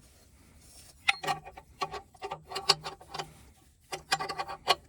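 Socket ratchet clicking in short runs of quick clicks, turning out an oxygen sensor through a 22 mm oxygen sensor socket. The clicking starts about a second in, pauses, and comes again near the end.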